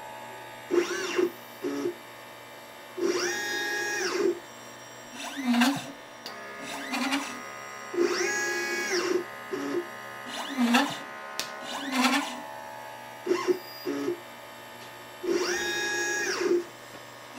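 LitePlacer pick-and-place machine's stepper motors whining as the head moves, the pitch gliding up, holding and gliding down with each move. The work cycle repeats about every four and a half seconds, with short low buzzes and clicks between the moves.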